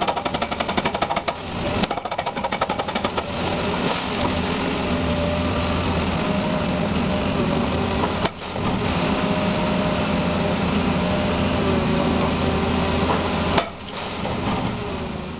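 Machinery hammering in a rapid run of sharp knocks for about three and a half seconds, then a steady, loud mechanical noise with a few faint hum tones.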